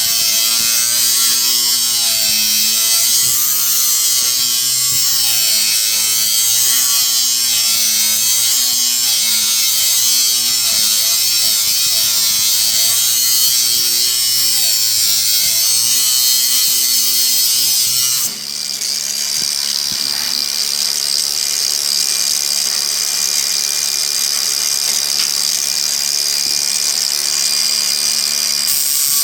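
Grinder with a zip (cut-off) wheel running as it trims and grinds a 5/16 tool blank, its whine wavering in pitch. About two-thirds of the way through, the sound changes abruptly to a steadier, slightly quieter whine.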